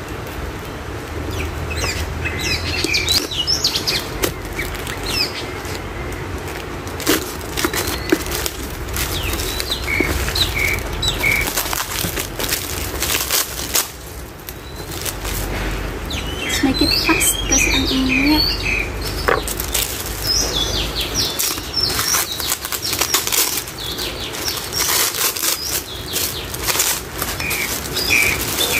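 Paper wrapping rustling and crinkling in continual handling as shipped plants are pulled from their cardboard tubes and unwrapped. Birds chirp now and then.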